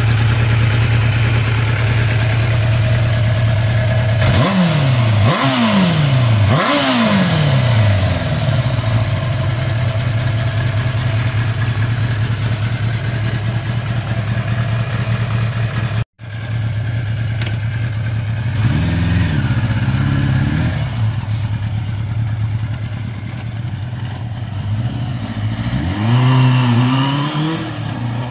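1985 Suzuki GSX-R 750's oil-cooled inline-four idling steadily, blipped three times in quick succession about four seconds in. After a brief cut it is blipped twice more, and near the end it revs up as the bike pulls away.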